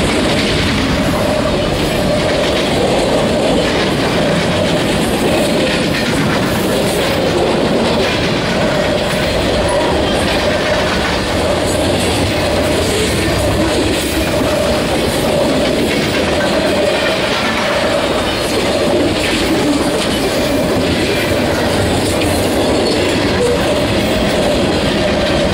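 Freight train cars rolling past close by: a steady, loud rumble and clatter of steel wheels on the rails.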